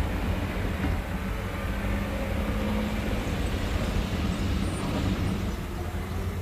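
Steady low rumble of vehicle engines running at a slow, even pace, with a couple of faint held tones over it.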